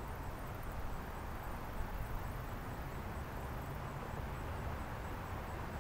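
Steady outdoor street ambience: a low, uneven rumble under a soft hiss, with a faint high chirp repeating about three times a second until near the end.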